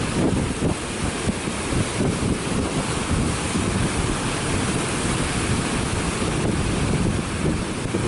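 Rough sea surf breaking and washing over black volcanic rocks, a steady rushing noise, with wind buffeting the microphone and adding a fluttering low rumble.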